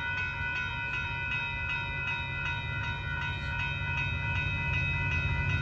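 Railroad crossing bell ringing in a fast, even pulse over the low rumble of an approaching freight train. The rumble grows louder near the end.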